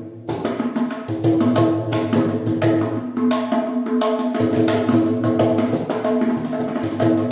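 Mridangam played by hand: a fast, continuous run of sharp ringing strokes on the tuned right head mixed with deep bass strokes on the left head, after a very short pause at the start.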